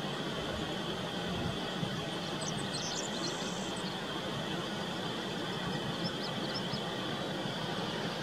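Jet engines of a Boeing 747-400 freighter running at low power as it rolls slowly along the runway: a steady distant rumble and hiss with a thin, steady high whine over it.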